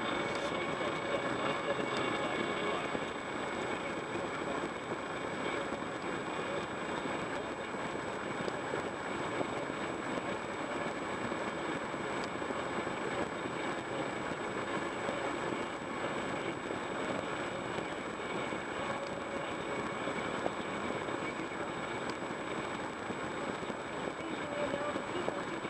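Steady noise inside a car's cabin while the car sits stopped, with no distinct separate sounds.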